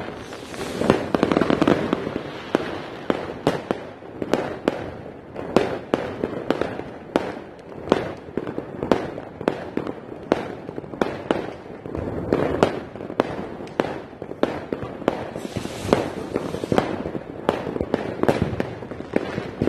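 Many fireworks exploding at once: a dense, irregular barrage of sharp bangs and pops, several a second, over a continuous rumble of more distant explosions.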